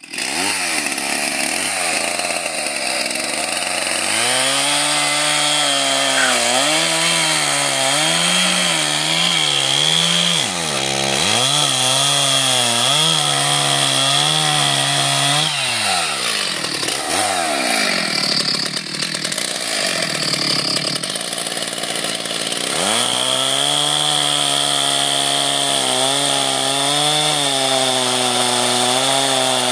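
Stihl two-stroke chainsaw cutting dry, seasoned oak logs into firewood rounds. The engine is held at high revs through several cuts, drops and picks up again about eleven seconds in, and runs lower and unevenly for several seconds in the middle before revving back up for the next cut.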